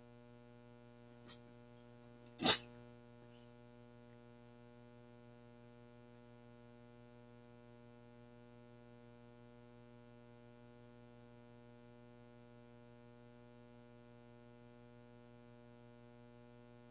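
Faint, steady electrical mains hum with a stack of overtones on an audio line. A soft click comes about a second in, and a much louder short, sharp noise about two and a half seconds in.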